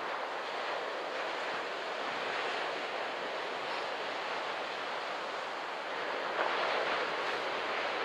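Waist- to stomach-high beach-break waves breaking and washing up the sand: a steady hiss of surf that swells briefly about six and a half seconds in.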